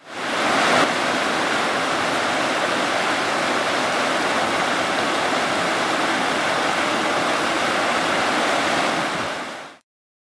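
Mountain creek rushing over a rocky cascade: a steady, even white-water noise that comes in quickly at the start and fades out just before the end.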